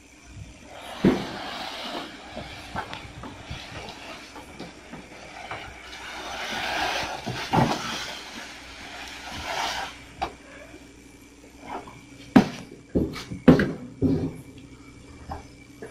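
Coconuts being unloaded by hand: a rolling clatter and thuds as they tumble onto a pile, then a few sharp knocks near the end.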